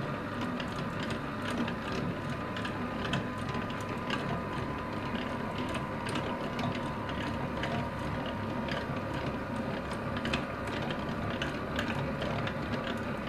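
Commercial planetary mixer running steadily while stirring honey in a stainless steel bowl, its motor and gearing giving a steady hum with irregular clicking throughout.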